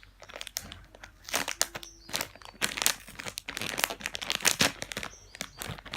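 Plastic packaging being crinkled and torn open by hand to get a squishy toy out, with irregular crackles throughout.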